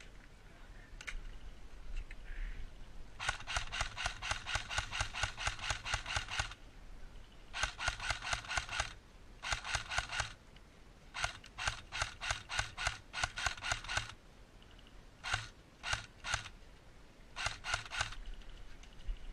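Airsoft gun firing in rapid strings of shots, several bursts of evenly spaced sharp clicks, then a few separate shots near the end.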